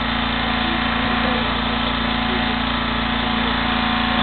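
Small petrol engine of a firefighters' hydraulic rescue-tool power unit running steadily, keeping pressure in the hoses to the tool at the car door.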